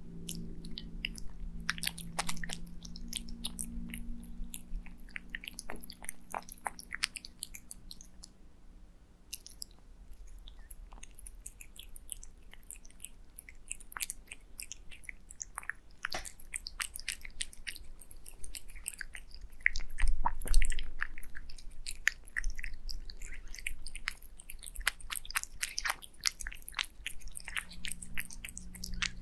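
Domestic cats eating wet cat food with egg yolk from a glass plate: close, wet chewing and licking with many irregular clicks of teeth and tongue. There is a short lull about eight seconds in and a louder low thump about twenty seconds in.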